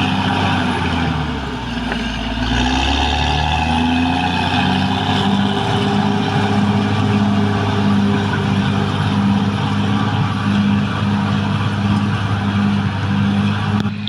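Caterpillar D6R XL bulldozer's diesel engine running under load. It sags briefly about two seconds in, then picks back up and holds steady with an even pulsing beat.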